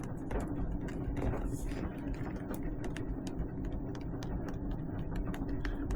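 Fingers pressing and rubbing an adhesive LED light strip down onto a motorcycle helmet's shell, giving many small irregular clicks and rubs over a steady low hum.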